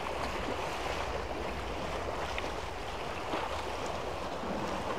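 Sea surf washing against the concrete tetrapods of a breakwater in a steady wash, with some wind on the microphone.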